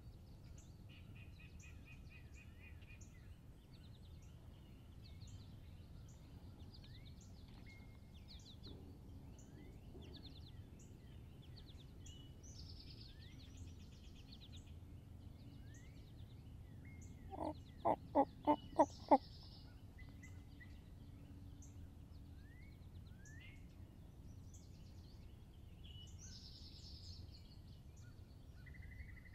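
Wild turkey gobbler gobbling once, a loud rattling gobble of about six quick notes lasting under two seconds, about two-thirds of the way in. Small songbirds chirp and trill faintly in the background.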